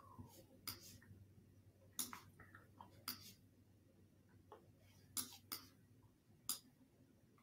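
Near silence broken by about half a dozen faint, sharp computer mouse clicks, spaced irregularly, as a map is dragged and panned on screen.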